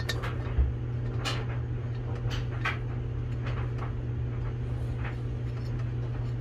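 Small metallic clicks and scrapes of a spark plug being threaded by hand into a brand-new cylinder head, whose threads are really snug. There is a soft low thump about half a second in, over a steady low hum.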